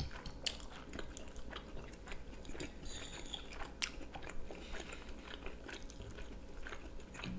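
Close-miked chewing of baked beans and other cooked breakfast food, with irregular small clicks of forks against a plate.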